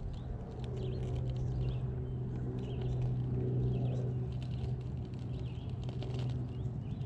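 Cross RC JT4 scale rock crawler creeping over rock: its Hobbywing Quickrun Fusion Pro brushless motor and gears give a steady hum, with scattered clicks of tyres and chassis on stone. Birds chirp in the background.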